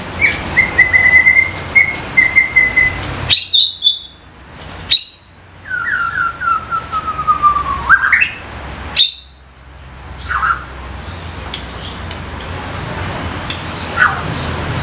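Young white-rumped shama singing: a quick run of chirped notes, then a few sharp, loud notes and a falling series of whistled notes that ends in a rising sweep, with scattered single notes later on.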